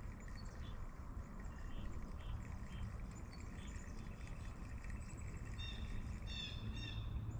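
Outdoor ambience of birds chirping over a steady low background rumble, with a quick run of louder, repeated chirps near the end.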